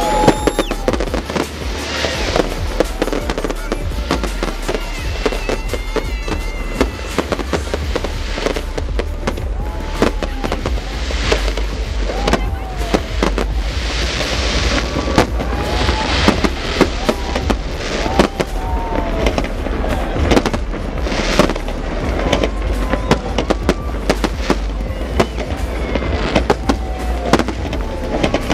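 Aerial fireworks display going off in quick succession: dense bangs and crackling bursts throughout, with short falling whistles here and there.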